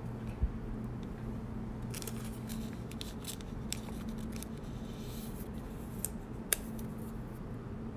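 Faint rustling and light clicks of trading cards being slipped into a plastic card sleeve and handled, with a few sharper ticks, over a low steady hum.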